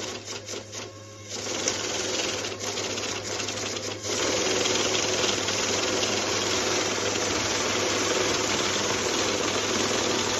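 Electric banknote counting machine riffling through a stack of bills: a few flickering clicks, then a continuous fast whirring flutter of notes that steps up in loudness about four seconds in.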